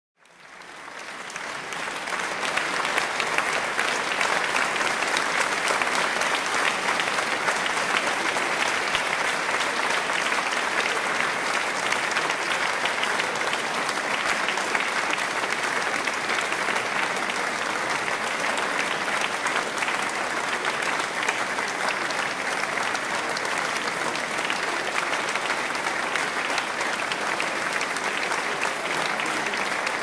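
A large audience applauding: many people clapping at once in a dense, steady wash of claps that swells up over the first couple of seconds and then holds.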